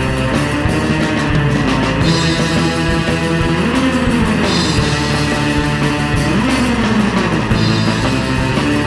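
Instrumental surf-rock music: electric guitar over bass and drums at a steady driving beat, with sliding guitar bends about four seconds in and again near seven seconds.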